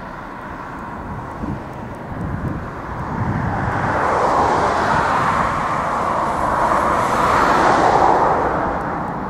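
Airbus A319-111's twin CFM56 turbofan engines at take-off thrust as the jet climbs away, a steady rushing jet noise. It swells about three seconds in and eases slightly near the end.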